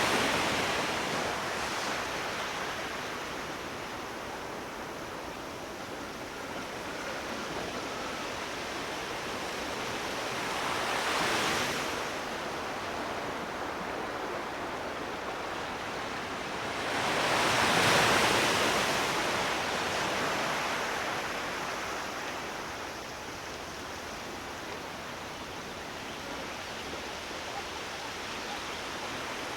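Sea waves: a steady rush of surf, with one wave breaking and washing in about eleven seconds in and a bigger one about eighteen seconds in.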